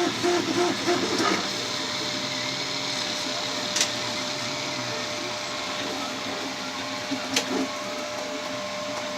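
FDM 3D printer at work: its stepper motors sound a quick run of short repeated pitched moves in the first second, then the printer settles into a steady whir with a constant hum. Two sharp clicks come partway through.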